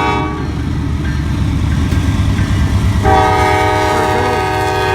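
A locomotive's multi-chime air horn, a Nathan K5LA, sounding over the low rumble of a passing freight train. One blast cuts off just after the start, and a second begins about three seconds in and holds.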